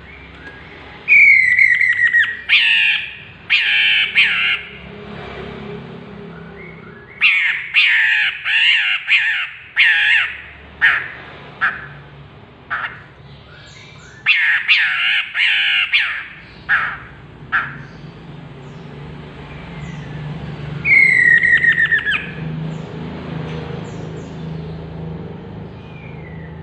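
Chestnut-capped laughingthrush calling in loud, harsh bouts of rapid notes, four bouts in all, two of them opening with a falling whistled note.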